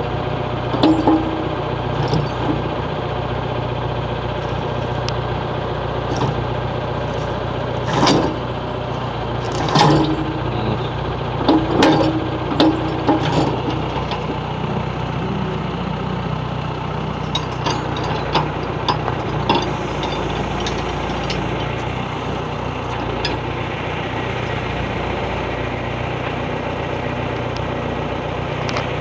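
Backhoe's diesel engine running steadily, with scattered sharp cracks and knocks as the bucket crushes a hard drive. The cracks bunch together about eight to thirteen seconds in, with a few more around eighteen to twenty seconds.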